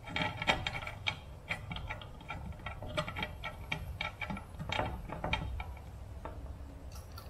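Irregular light clicks and taps of a small precision screwdriver turning tiny screws in a 2-inch cinewhoop drone's frame, with the tool knocking against the parts as they are handled.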